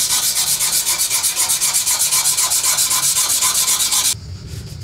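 Steel knife blade being hand-sanded on a flat abrasive stone: a quick, even back-and-forth scraping, about five strokes a second, that stops suddenly about four seconds in. The maker is removing the scratches of the previous grit by crossing the stroke direction.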